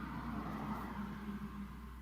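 City street traffic: a motor vehicle's engine running close by with a wavering low hum, over a steady low drone of background traffic.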